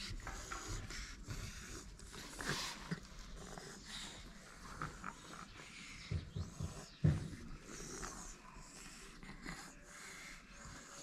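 A white cat breathing and snuffling while being stroked, with a few short low thumps about six to seven seconds in.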